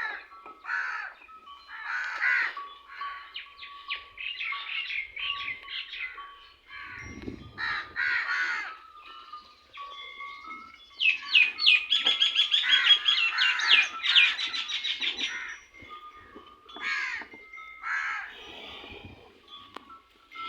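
Birds calling and chattering, with harsh crow-like caws. About halfway through comes a dense burst of rapid chatter lasting a few seconds.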